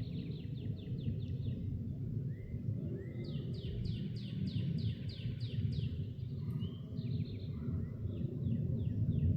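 A songbird singing three phrases, each a quick series of about a dozen repeated high, downslurred notes, at the start, a few seconds in, and near the end. A steady low outdoor rumble runs underneath.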